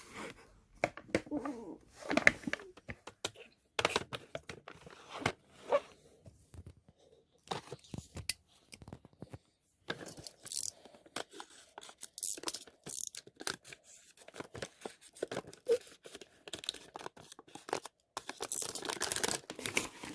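Packaging being torn and crinkled during an unboxing: irregular rips and rustles with short pauses, busiest near the end.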